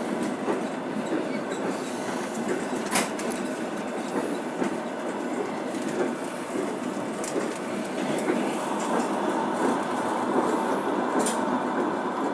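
Passenger train running at speed, heard from inside the carriage: a steady rumble of wheels on rails with occasional clicks. A faint steady whine comes in after about eight seconds.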